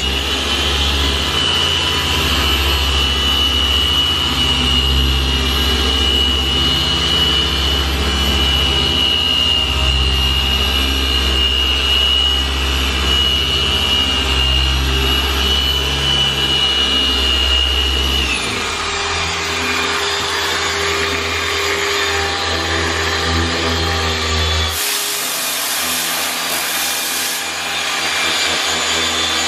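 Electric machine polisher running steadily with a high whine over a low hum, then winding down with a falling pitch about two-thirds of the way through. A short, sharp hiss of air follows near the end.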